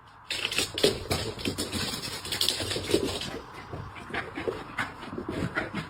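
A dog busy at something, making a quick run of short rasping and knocking sounds one after another.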